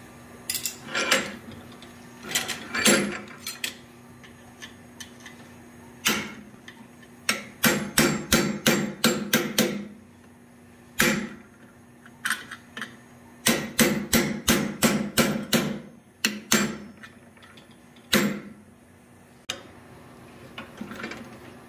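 Hammer blows on hot steel clamped in a bench vise as it is fullered out: single strikes and short groups, then two long runs of rapid blows at about four to five a second, with pauses between. A steady low hum runs underneath.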